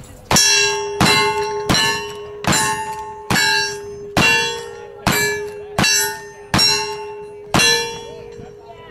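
A string of ten shots at a steady pace, a little under one a second, each hit followed by the ringing clang of a steel target plate.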